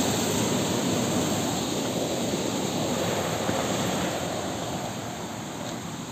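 Water rushing through a sluice gate. It is a steady noise that grows fainter after about four seconds.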